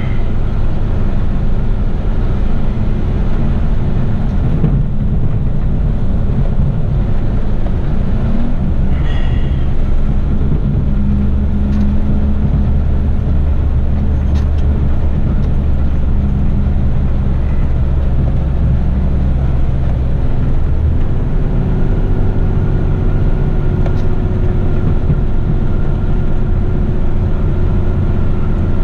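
Heavy rigid truck's diesel engine running steadily while driving, heard from inside the cab, mixed with road noise. Its low drone grows heavier for about twelve seconds in the middle.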